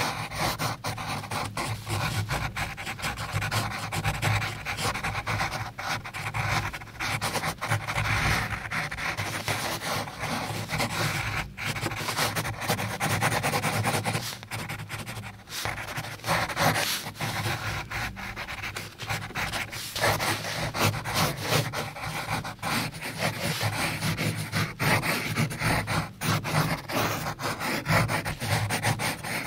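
Pencil drawing on paper: graphite scratching across the sheet in quick back-and-forth strokes, continuous with a few brief pauses.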